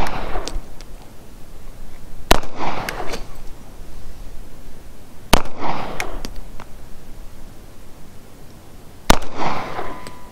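Three pistol shots from a CZ P-09, fired slowly about three seconds apart, each sharp crack followed by a short echo trailing off.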